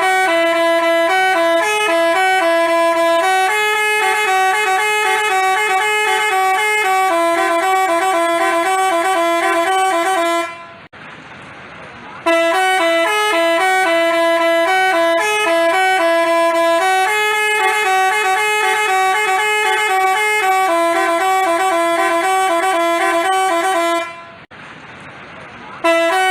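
Basuri multi-tone telolet bus horn playing a loud stepping melody. The same phrase of about ten seconds sounds twice with a short break between, and starts a third time near the end.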